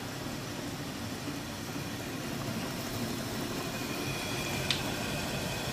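Hardinge DV59 lathe running under power, its two-speed motor and belt-and-step-pulley drive giving a steady mechanical hum. A faint high whine comes in about halfway through, and there is one sharp click near the end.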